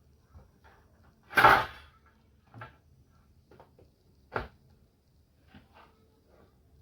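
An opened HP LaserJet 1020 laser printer being run: a faint steady hum with irregular mechanical clicks and knocks, the loudest about one and a half seconds in and another a little after four seconds.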